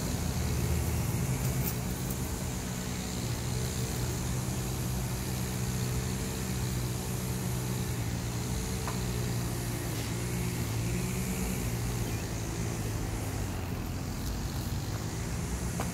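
A vehicle engine idling steadily, a low even drone, with a few faint clicks.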